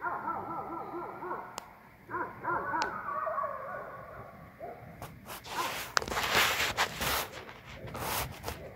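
A pack of coyotes yipping and howling together, many wavering, warbling calls overlapping. Past the middle, a few seconds of loud, harsh noise covers the calls.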